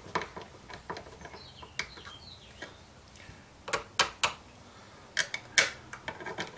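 Small metallic clicks and ticks of a nut and washers being fitted onto a bolt and worked with a small hand tool, with the sharpest clicks in the second half.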